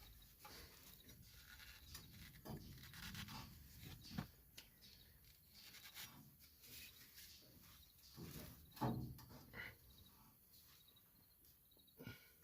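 Faint, scattered clicks and knocks of hand work on a baler hose fitting as it is being tightened, with the loudest knock about nine seconds in.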